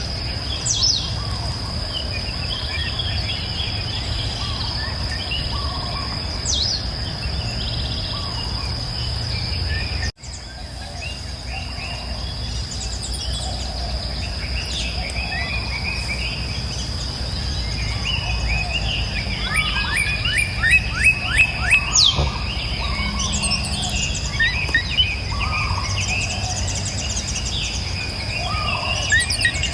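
Several wild birds chirping and singing, with short calls and a fast trill of falling notes about two-thirds of the way through, over a steady high tone and a low rumble. The sound cuts out for an instant about ten seconds in and comes back.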